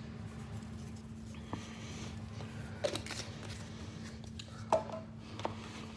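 Quiet indoor room tone with a steady low hum, broken by a few faint light clicks and taps.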